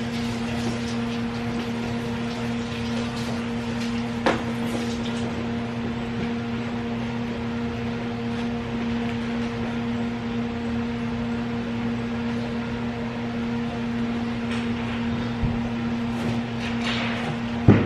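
A steady low electrical or mechanical hum with a faint hiss, broken by a sharp click about four seconds in and a louder knock near the end.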